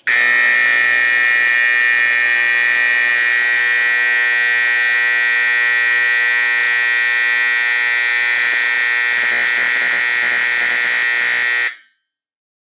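Vintage 120 VAC Simplex fire alarm horn sounding one continuous, loud, steady buzzing blast. It starts abruptly and cuts off about a second before the end.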